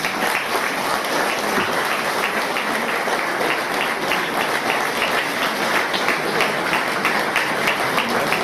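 Audience applauding: a steady round of many hands clapping that starts all at once and keeps going.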